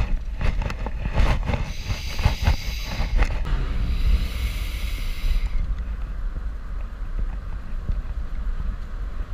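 Moving pickup truck heard from inside its cab: a steady low road and engine rumble with wind buffeting the microphone. There are rattles and clicks over the first three seconds or so, and a hiss that drops away about halfway through.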